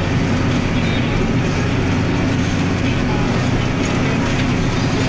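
Massey Ferguson 8280 Xtra tractor's diesel engine running steadily under load, heard from inside the cab while it pulls a seedbed cultivator across the field.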